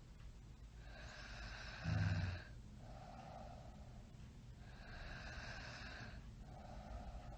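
A sleeping person snoring: slow, noisy breaths about every four seconds, alternating a hiss with a softer rasp, and one short, loud, low snort about two seconds in.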